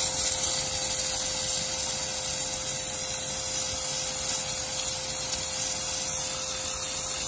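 StarQ ST-25 pressure washer running with the trigger held, its pump humming at one steady pitch under the hiss of a narrow high-pressure water jet blasting moss and grime off a concrete floor.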